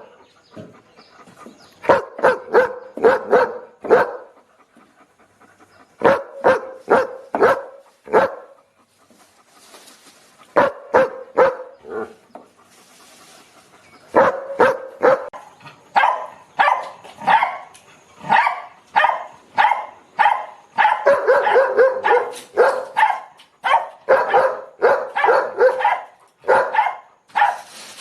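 Dog barking angrily in quick runs of sharp barks separated by short pauses, the barking becoming almost continuous from about halfway through.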